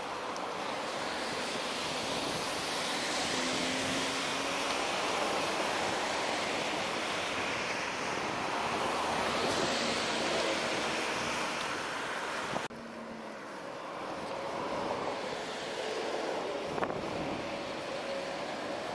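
Steady rush of road traffic heard from a moving bicycle: cars and trucks passing close by, mixed with wind on the microphone. The level drops suddenly about two-thirds of the way through.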